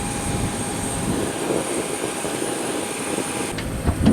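Steady turbine whine and hiss from a Boeing 737. The whine cuts off abruptly about three and a half seconds in, followed by a couple of knocks near the end.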